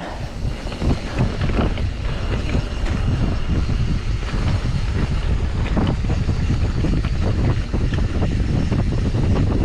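Wind buffeting the microphone of a mountain bike riding down a dirt trail. Tyres roll on the dirt, with frequent small clicks and rattles from the bike over bumps.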